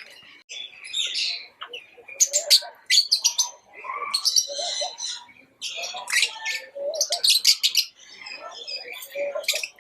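Lovebirds chirping: repeated bursts of quick, high chirps with lower chattering calls in between.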